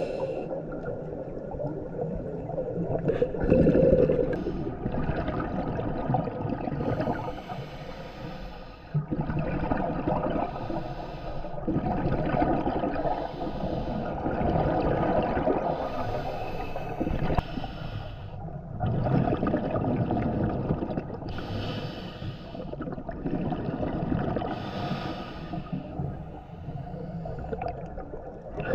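Underwater scuba breathing heard through the camera housing: regulator breaths and gurgling exhaust bubbles, swelling and fading in irregular surges every few seconds.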